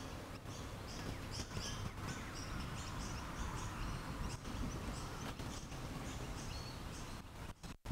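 Faint bird chirping, short high notes repeated two or three times a second, over low steady background noise; the sound drops out briefly near the end.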